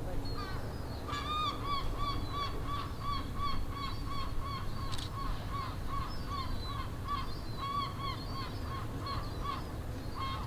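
Birds calling in short, repeated pitched calls, about three a second, over a low steady background rumble.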